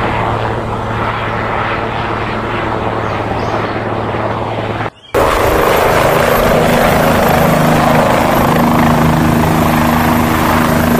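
Full-size helicopters running, rotors and turbine engines: one helicopter flying, then after a brief break about five seconds in, a second, louder one hovering low, with several steady humming tones in its sound.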